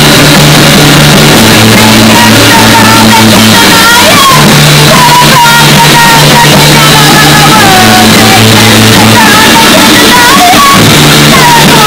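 Punk band playing live, recorded very loud: electric guitars and bass moving through held notes under a woman's singing.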